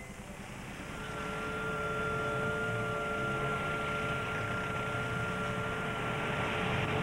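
Motor vehicle engine noise: a steady, dense drone with a few held tones, swelling over the first second and then holding even.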